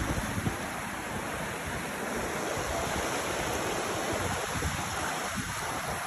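Rushing mountain river, a steady even noise of water, with wind buffeting the microphone now and then.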